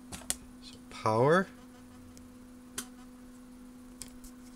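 A steady low electrical hum, holding one pitch, with two faint clicks.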